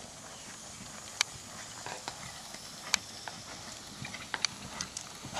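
Horse trotting on a sand arena: soft, muffled hoofbeats, with several sharp clicks standing out about once a second.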